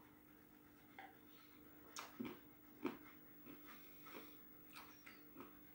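Near silence with faint mouth sounds as a man drinks from a glass and tastes the drink: a row of soft short gulps and lip smacks about every two-thirds of a second. A faint steady hum runs underneath.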